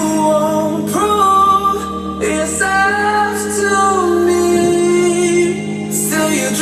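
Live amplified music during a band's sound check: a singer holds long notes that glide between pitches over steady low accompaniment.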